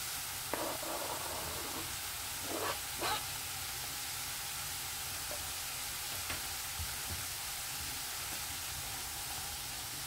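Chopped mushrooms and onion frying in oil in a pan: a steady sizzle, with a few brief knocks in the first three seconds.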